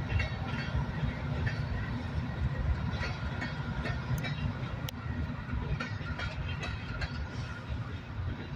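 Empty open-top rock cars of a BNSF freight train rolling past: a steady low rumble of the wheels on the rails, with irregular clicks and clanks as the wheels pass over rail joints.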